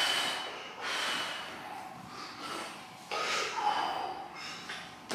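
A strongman's sharp, forceful breaths, several in a row through the nose and mouth, as he braces at the bar before a heavy deficit deadlift.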